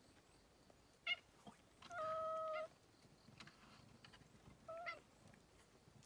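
Black-and-white cat meowing about three times: short calls, with one longer, level meow about two seconds in that is the loudest.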